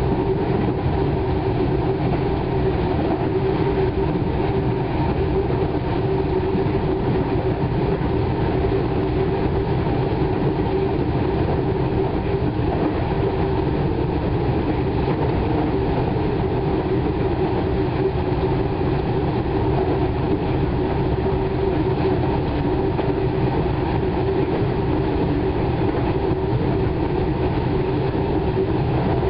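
Comeng electric suburban train heard from its driving cab, running at a steady speed: a continuous rumble of wheels on the rails with a steady drone.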